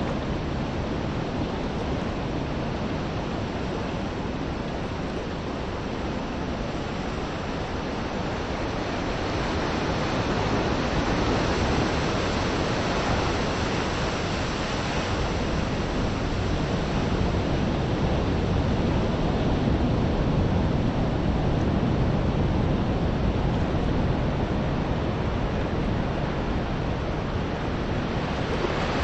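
Steady wash of wind and small waves lapping at the beach, an even rushing noise with no separate events, growing a little louder about ten seconds in.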